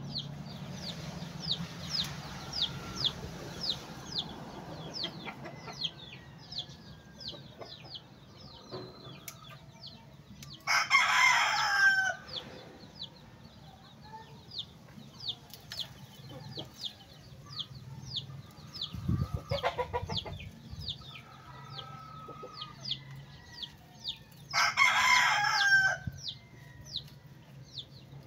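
A rooster crowing twice, once about eleven seconds in and again near the end. Under it runs a steady series of short high chirps, about three a second.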